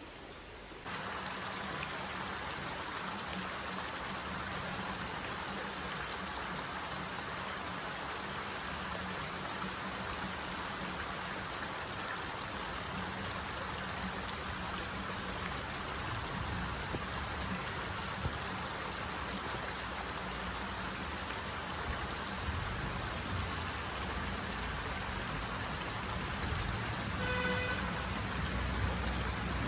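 Steady rush of running water that steps up abruptly about a second in, with a brief pitched sound near the end.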